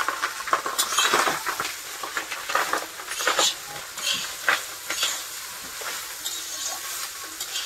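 Cooked rice frying in ghee in a kadai, sizzling, with a spatula scraping and turning it in repeated strokes; the sizzle is loudest in the first second or so, as the rice goes into the hot fat.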